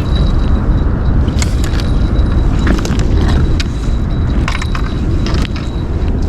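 Steady low rumbling noise, with a few short clicks and rattles scattered through it.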